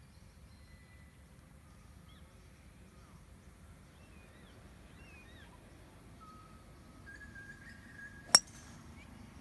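A golf driver striking a teed-up ball: one sharp, metallic click about eight seconds in.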